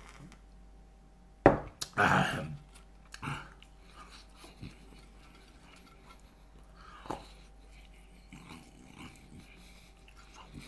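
A glass bottle knocks down onto the table about a second and a half in, followed at once by a short, loud, rough throaty sound from the drinker. After that come a few quieter clicks and mouth noises of eating fried chicken and chips by hand.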